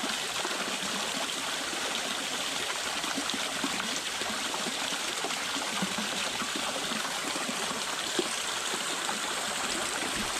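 Water flowing in a waterfall stream: a steady rush with many small gurgles and splashes.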